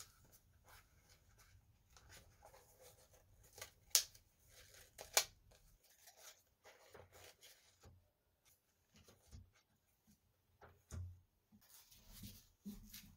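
Close-up handling sounds of silver cord being wrapped around a small kraft cardboard box and tied in a bow: faint rubbing and rustling of cord on cardboard, two sharp clicks about four and five seconds in, and a few soft knocks of the box in the second half.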